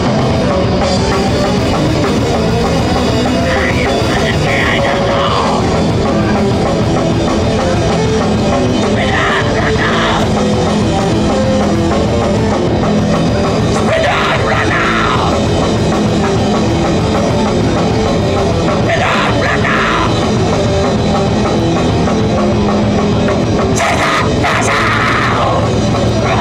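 A live heavy thrash band playing loud and without a break: distorted electric guitar over a drum kit.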